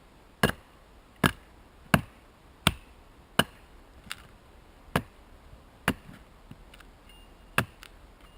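Axe chopping wood: eight sharp strikes, mostly a little under one a second, with a short break near the middle.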